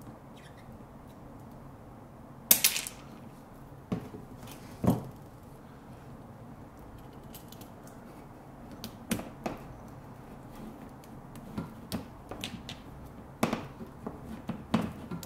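Scattered sharp clicks and light knocks of hand work with electrical wiring: a wire stripper handled and put down, and solid-core wires pushed into a push-in wire connector. The loudest click comes about two and a half seconds in, with a run of smaller clicks in the last few seconds.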